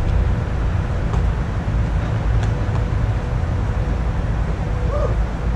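Steady low rumble of outdoor background noise with a faint steady hum, and a few faint ticks.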